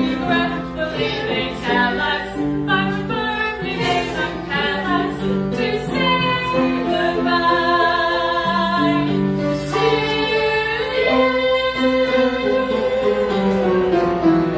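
Two women singing a church special-music song together, their voices holding long notes.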